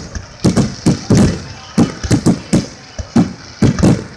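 Aerial firework shells bursting in quick succession: a rapid, irregular string of sharp bangs, three or four a second.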